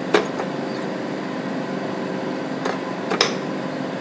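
Spoon stirring rice and beans in a stainless steel pot, clinking against the side three times: once just after the start and twice near the end. Under it runs a steady hum from a kitchen appliance's fan.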